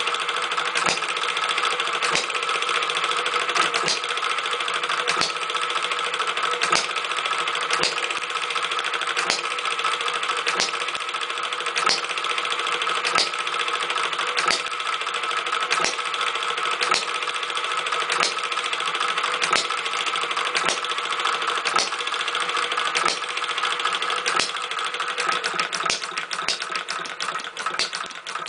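Homemade model six-cycle hit-and-miss gas engine with a flyball governor running, with a steady mechanical clatter and a sharp beat about every one and a half seconds.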